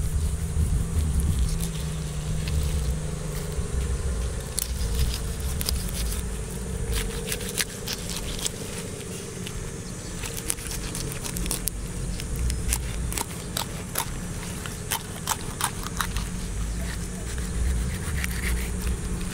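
Knife cutting along the backbone of a scaled fish on a wooden chopping block: scraping strokes with a run of sharp clicks as the blade crunches through the bones and knocks the board.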